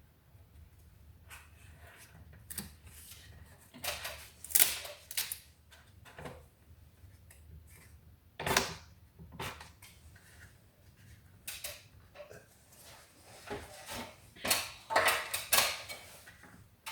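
Irregular knocks, taps and scrapes of hand carpentry work, with wood and tools handled while a door frame is shimmed and fitted. The sharpest knocks come about four and a half and eight and a half seconds in, with a quick run of them near the end.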